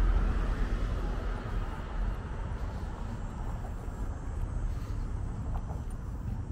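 A car going by on the street, its road noise loudest at the start and fading over the first couple of seconds, leaving a quieter steady traffic background.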